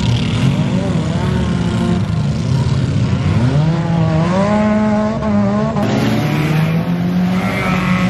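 Several wreck-race cars' engines revving hard on a muddy dirt track, their pitch climbing and falling as they accelerate and lift off, with more than one engine heard at once.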